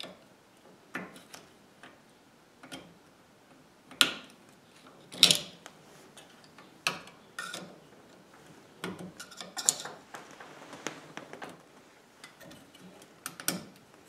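A metal pick scraping and clicking against the steering column's lock plate and its retaining pin as the pin is worked out of its groove on the steering shaft. The small metallic clicks and scrapes come at irregular intervals, with sharper ones about four and five seconds in and near the end.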